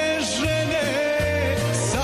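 A man singing a long held note live over band backing music, with pulsing bass notes coming in about half a second in and cymbal hiss near the end.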